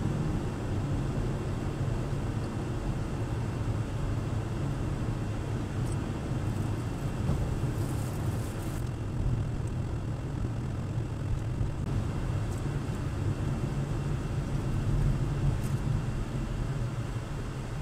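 Steady road and engine noise of a car driving, heard from inside its cabin, with a low hum that barely changes.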